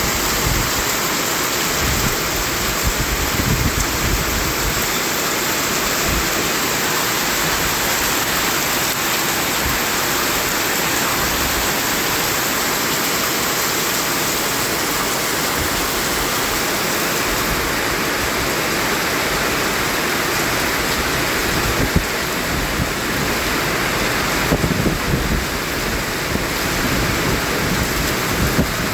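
Continuous white noise for sleep: a steady rushing hiss with an uneven low rumble beneath it.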